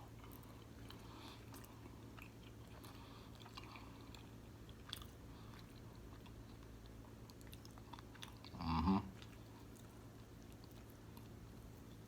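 Faint close-up eating sounds: soft, wet chewing and small mouth clicks of someone eating fufu with egusi soup. A brief louder sound about nine seconds in.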